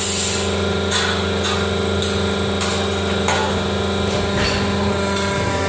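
A 100-ton hydraulic press brake running with a steady hum from its pump motor while bending sheet steel for a door frame, with a few short sharp knocks of metal against metal.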